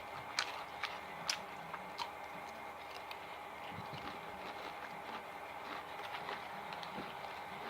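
Close-miked chewing and mouth sounds of someone eating, with a few sharp clicks in the first two seconds, then softer chewing over a steady faint hum.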